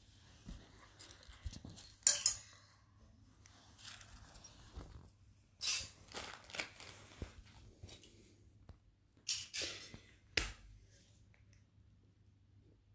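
Metal jewelry being handled on a cloth: a handful of short rustling, clinking bursts, the loudest about two seconds in, with a low room hum between them.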